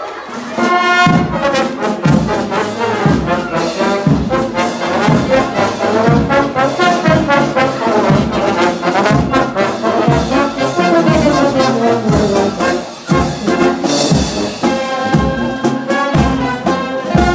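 Military marching band playing: trombones, trumpets, saxophone and sousaphone carry the tune over a steady beat of bass drum and cymbals.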